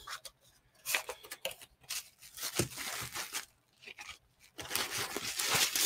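Bubble-wrap packaging bag rustling and crinkling as it is handled, broken by a few light knocks, with a longer spell of crinkling near the end.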